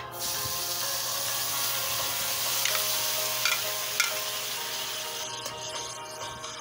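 Marinated chicken pieces dropping into a hot pan of oil and fried garlic and sizzling, with a few knocks of the bowl and spatula against the pan. The sizzle starts suddenly and dies down after about five seconds.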